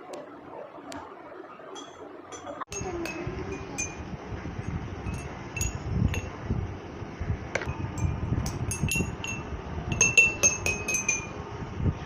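Water-filled glasses being tapped: an irregular run of clinks starting about three seconds in, each ringing briefly, at a few different pitches. The pitch of each glass depends on how much water it holds.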